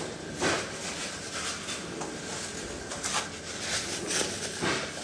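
Scattered knocks and clatter of kitchen utensils and dishes being handled, with the sharpest knock about half a second in and a few more in the last two seconds.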